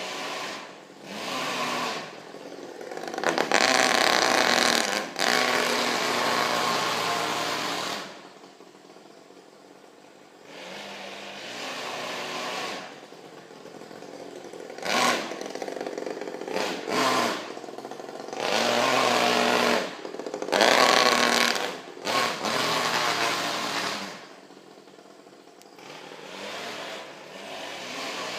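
Saito FA-50 single-cylinder four-stroke glow engine in a Traxxas Nitro 4-Tec RC car, running with the throttle repeatedly opened and closed. The engine note rises and falls and grows loud for a few seconds at a time, with quieter stretches between.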